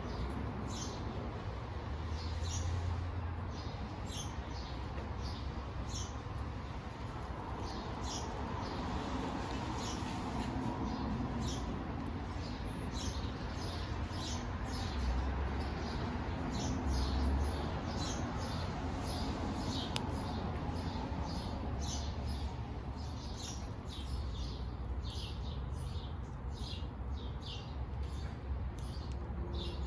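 Short, high chirps from small animals, repeated many times in irregular runs, over a low steady rumble.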